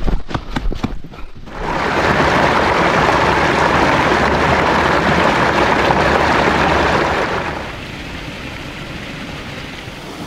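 A few footsteps, then the rushing of a mountain stream, loud for about six seconds before falling to a lower steady rush near the end.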